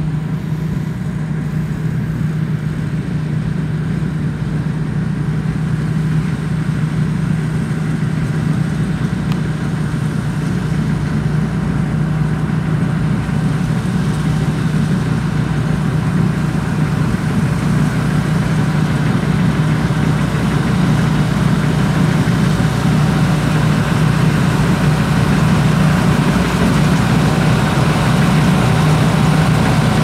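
Sakpattana KM-67 rice combine harvester at work, its engine running steadily under load with a thin high whine above it, getting gradually louder.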